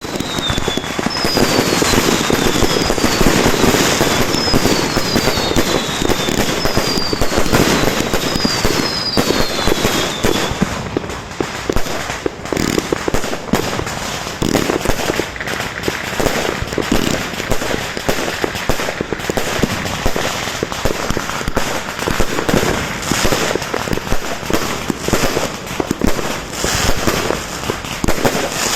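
Fireworks going off in a dense, continuous barrage of rapid bangs and crackling. Several short descending whistles sound over it during roughly the first ten seconds.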